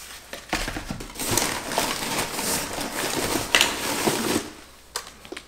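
Crinkling and rustling of crumpled packing paper and bags as a hand digs through a cardboard box, stopping about a second before the end.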